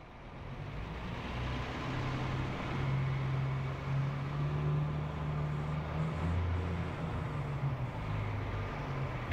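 A low rumbling drone fading in over the first couple of seconds, holding a few deep tones that step to new pitches every few seconds, like a cinematic soundtrack swell.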